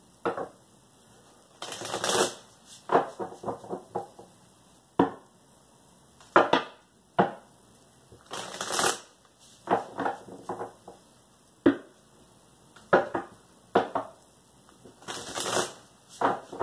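Tarot deck being shuffled by hand: short taps and flicks of cards, with three longer rasping runs of cards sliding against each other about six seconds apart.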